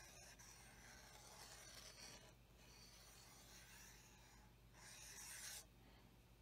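Faint scratching of a small metal pick scraping black paint out of the grooves of a plastic model warp grill, in several strokes with a louder scrape about five seconds in.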